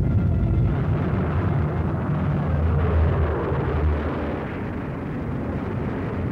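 Battle sounds on a 1940s war-film soundtrack: a steady, dense low rumble of armoured vehicles and explosions.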